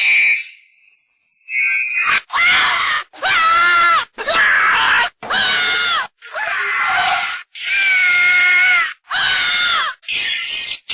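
Scrat's cartoon screams, voiced by Chris Wedge: a short cry, a second's pause, then about eight high-pitched screams and squeals in quick succession, each about a second long with a wavering pitch, cut one straight after another.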